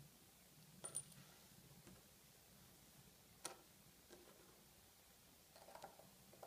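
Near silence broken by light clicks of small metal can seamer pin assembly parts being handled. There are two sharp clicks about a second in, a single one about three and a half seconds in, and a few faint rattling clicks near the end.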